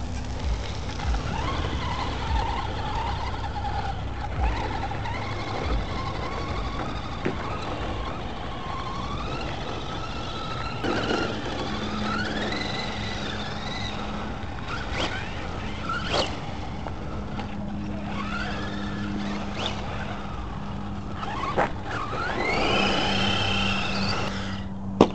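Electric RC short-course truck motors whining, the pitch gliding up and down as the throttle is worked, with a strong rising whine near the end. Scattered knocks and a sharp hit right at the end come from the trucks bumping over the rough ground.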